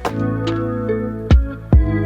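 Instrumental background music: sustained keyboard-like chords over a deep bass, with sharp struck notes at the start and twice more in the second half.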